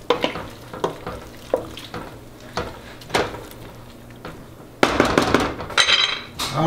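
Wooden spoon stirring pasta and broccoli in a stainless steel pot, with irregular knocks of the spoon against the pot. A louder stretch of scraping and clattering about five seconds in.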